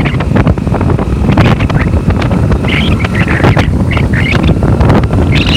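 Wind buffeting the microphone over a loud, steady low rumble of engines, with scattered knocks and a few brief higher-pitched wavering sounds about halfway through and near the end.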